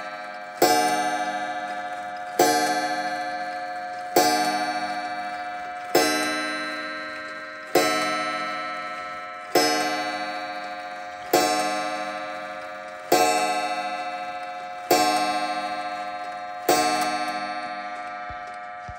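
Kassel 31-day wall clock striking the hour on its coiled gong: ten evenly paced hammer blows about 1.8 seconds apart, each ringing out and slowly dying away.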